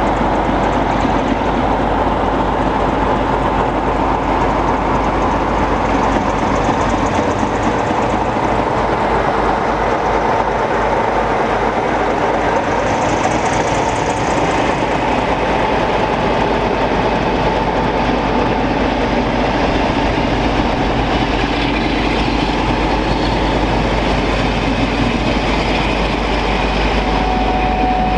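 Train of Class 47 diesel locomotives, with their twelve-cylinder Sulzer engines, hauling Pullman coaches past close by: loud, steady engine noise, then the rumble of the coaches' wheels on the track. A thin steady squeal joins near the end.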